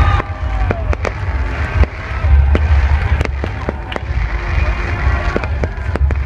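Fireworks going off in quick succession, many sharp bangs and crackles over a steady low rumble.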